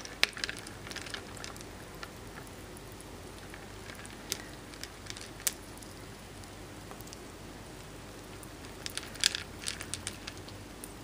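Pet rats rooting for peas among pebbles in a glass dish: scattered small clicks and taps of stones against glass, a few single ones, then a quick cluster about nine seconds in.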